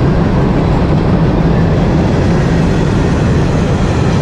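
Freight cars of a long trash train rolling past at close range: a loud, steady rumble of wheels on rail.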